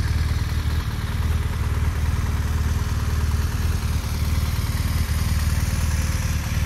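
An engine idling steadily: a low, even hum with a fast regular pulse that does not change.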